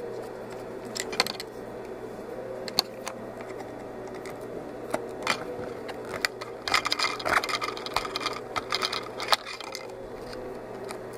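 Small clicks and scrapes of a Phillips screwdriver backing screws out of the plastic housing of a VelaShape III applicator. Scattered sharp clicks run through it, with a busy run of quick ticks and rattles from about six to nine and a half seconds in.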